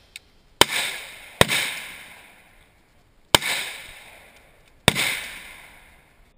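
Four single shots from an AR-15 rifle fired semi-automatically at an uneven pace: two about a second apart, then two more nearly two and then one and a half seconds later. Each sharp crack trails off in an echo lasting about a second.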